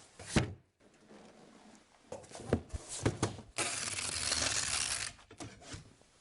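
Knocks and clicks of handling at an espresso machine, then a loud hiss lasting about a second and a half in the middle, like a steam wand being opened and shut, followed by a few more clicks.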